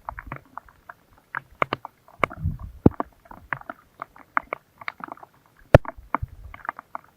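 Close rustling of clothing and gear with scattered sharp knocks and clicks, the loudest about two, three and six seconds in, as a camera or kit is handled right by the microphone.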